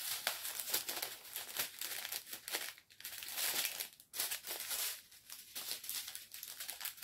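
Small plastic bags of diamond-painting drills crinkling and rustling as they are handled, in irregular bursts with a few short pauses.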